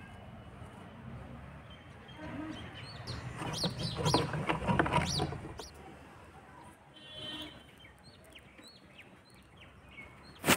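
Chickens clucking and small birds chirping in a yard. About three seconds in, a louder stretch of clatter and rustling lasts about two seconds as dry firewood sticks are handled and laid in a clay stove.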